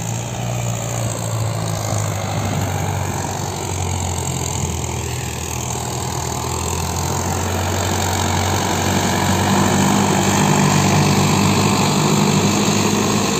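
Solis 5724 tractor's diesel engine running steadily under load as it pulls a disc harrow through the soil, growing louder about two-thirds of the way in as it comes closer.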